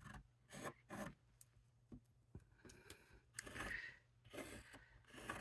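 Faint, short scraping strokes of a hand tool drawn along the slots of a plastic template over cardstock, scoring or cutting the fold lines, about half a dozen strokes with short pauses between.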